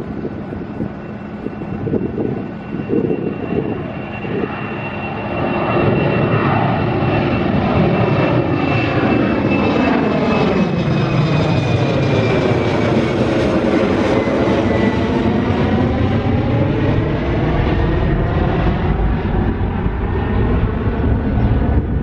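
Twin-engine jet airliner taking off and climbing directly overhead. Its engine noise swells about six seconds in and stays loud, with a high whine that slowly falls in pitch as the jet passes.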